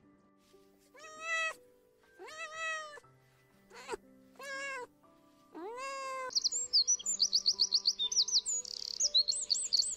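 A domestic cat meowing about five times, each meow wavering in pitch. From about six seconds in, a wren sings a fast, high-pitched trilling song of rapidly repeated notes, louder than the meows.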